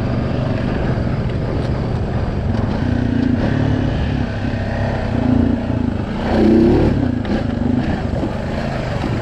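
Honda Rubicon 520 ATV's single-cylinder engine running as it is ridden, its pitch rising and falling with the throttle and briefly revving up about six and a half seconds in.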